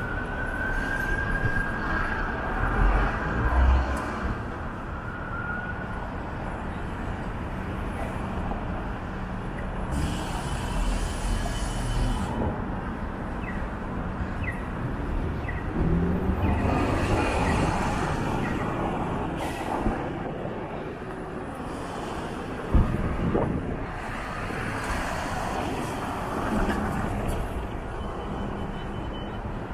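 City street traffic: vehicles passing on a busy street, swelling and fading. A faint high tone is held for the first few seconds, and there is one sharp knock a little past the middle.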